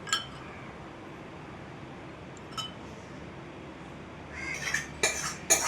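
A spoon clinking against a ceramic soup bowl: a ringing clink just after the start and another about two and a half seconds in, then a burst of louder clattering of spoon and dishes near the end.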